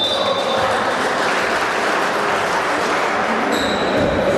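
Spectators in a basketball gym applauding steadily.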